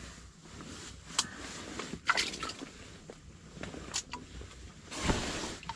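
Handling noises: a few sharp clicks and knocks, the loudest about two seconds in, as a small perch and fishing gear are handled, then a brief rustle of a jacket sleeve near the end.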